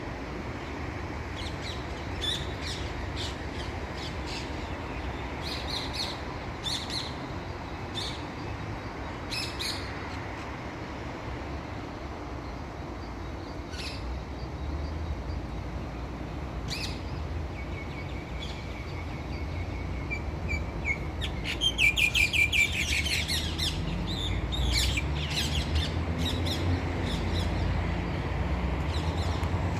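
Rose-ringed (Kramer's) parakeet calling: short, sharp calls scattered through, with a rapid run of repeated calls about twenty seconds in, over a steady low rumble.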